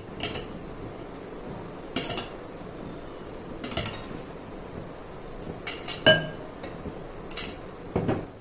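Metal spoon clinking against a stainless steel puttu tube and bowl as flour is spooned in: several separate clinks a second or two apart, the loudest about six seconds in with a short ring.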